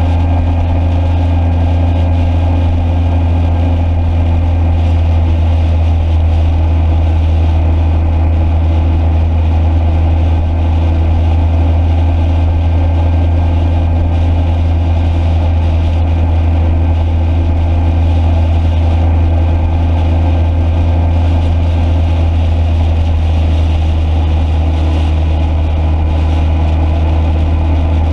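Motorcycle engine running at a steady speed: a constant low drone with steady overtones that does not rise or fall.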